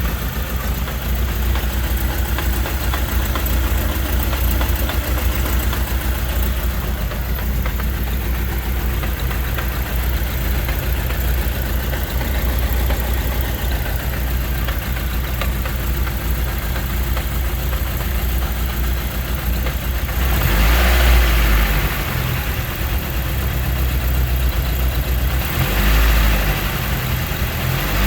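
A 1997 Eagle Talon's non-turbo 420A 2.0-litre inline-four running at idle, unevenly with a tapping: the engine is misfiring. It grows louder twice, briefly, in the second half.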